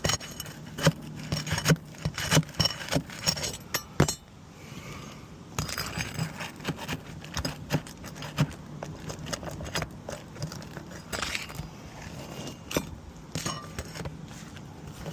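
Metal tool clinking and scraping against asphalt shingles and roofing nails as nails are worked loose under the shingles. Dense sharp clicks and scrapes at first, a short lull about four seconds in, then more scattered scraping and clinks.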